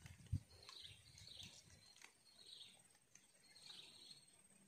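Near silence: faint, high chirps repeating roughly once a second from wildlife in the swamp, with one soft low thump just after the start.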